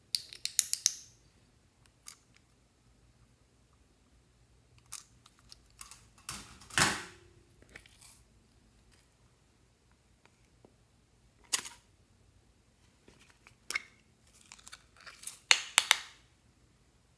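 Hands handling small plastic makeup containers and crumbling makeup over a glass tray of slime: crisp clicks, taps and crackles in short clusters, separated by quiet gaps.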